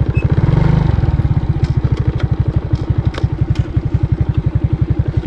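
Small engine running with a rapid, even beat, briefly louder near the start, with a few light ticks over it.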